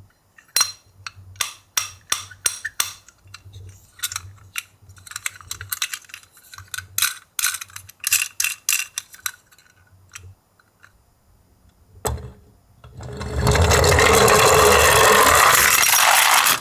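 Small die-cast toy cars clinking and clattering against one another in a quick, uneven run of sharp clicks. About thirteen seconds in, a loud, steady, hiss-like noise takes over.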